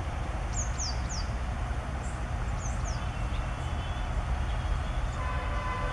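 A WDP4 diesel locomotive's EMD two-stroke V16 engine rumbles steadily as the train draws closer, with a steady whine joining about five seconds in. Birds give several short falling chirps over it in the first few seconds.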